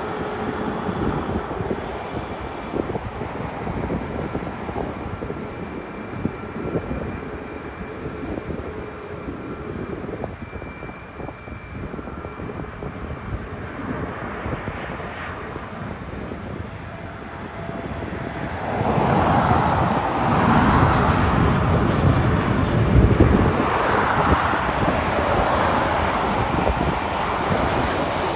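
Jet airliner engine noise: a steady rumble with a faint whine. About two-thirds of the way through it grows suddenly much louder and rougher and stays loud to the end, as a jet passes close by.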